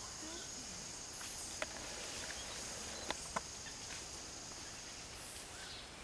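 Forest ambience: a steady high-pitched insect drone, with a few sharp clicks, three of them between about one and a half and three and a half seconds in, and some faint short chirps.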